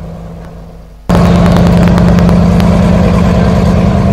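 Passenger ferry's engines running with a steady drone, then suddenly much louder about a second in as the ferry powers away from the berth and turns onto the river.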